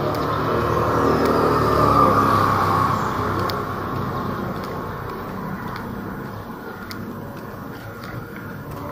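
A motor vehicle passing on the street, its engine and tyres loudest about two seconds in and then fading away.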